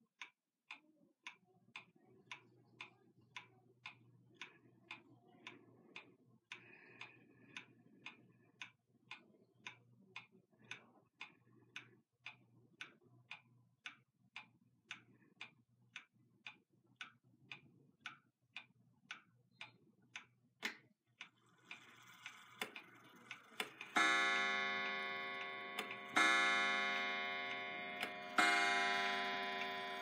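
Centurion 35-day pendulum wall clock ticking at about two beats a second, then, after a louder click, beginning its noon strike on a coil gong: three ringing strokes about two seconds apart near the end, each dying away.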